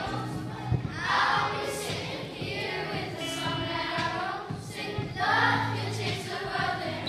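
A class of primary-school children singing together as a choir, in phrases over a steady musical accompaniment.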